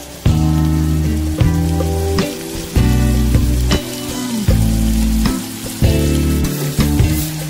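Background music with a steady run of notes and a strong bass, changing note about once a second, over chicken pieces sizzling in hot oil with garlic and shallots in a stainless steel pot.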